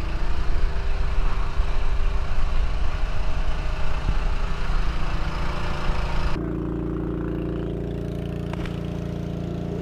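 An engine running steadily at a constant speed, with a rushing noise over it. About six seconds in the rushing cuts off abruptly, leaving the steady engine hum.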